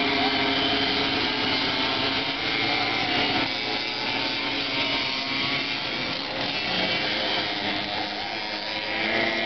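Several 45cc Russian-made two-stroke bicycle engines on racing moped sidecars, running together at high revs with a steady, overlapping buzz. The engines have no gearbox or variator; speed is controlled by slipping the clutch.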